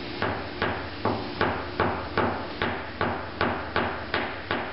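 Light, evenly paced taps of a 16-ounce hammer on a rounded knockdown tool held against a car body panel, about a dozen at roughly two and a half a second. The tapping knocks down a spot that a glue-pull dent repair left slightly high.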